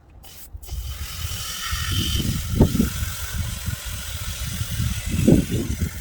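Wind buffeting the microphone in gusts, a low rumble that swells twice, under a steady hiss that comes in about a second in.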